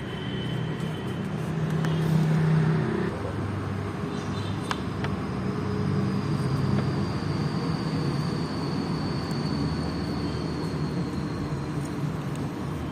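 A motor vehicle engine running steadily, a low hum, with a faint high whine for several seconds in the middle.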